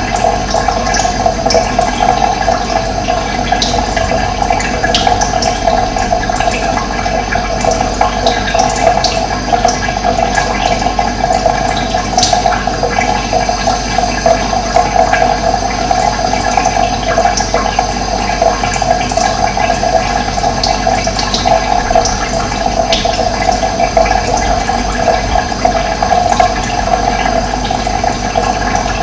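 Steadily running water with a constant rushing, and scattered short high bird chirps over it, one a little louder about halfway through.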